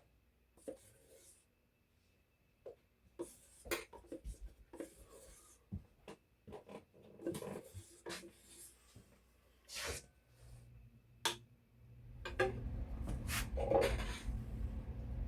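Scattered clicks, knocks and rustles of kitchen containers and utensils being handled while cornstarch is measured out for breading. A steady low hum starts about twelve seconds in.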